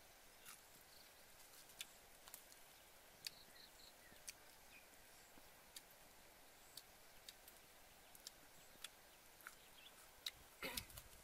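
Near silence: a faint hiss with scattered single sharp clicks every second or so, and a brief louder rustling cluster near the end.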